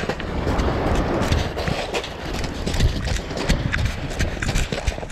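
Quick footsteps crunching on a pebble beach, a steady run of thumps and gravel scrunches close to the body-worn camera.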